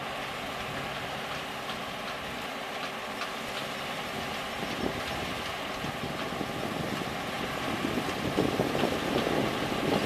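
Claas Mega Dominator 202 combine harvester running steadily under load as it cuts wheat, a drone of engine and threshing machinery. The sound gets louder toward the end as the combine comes nearer and wind starts buffeting the microphone.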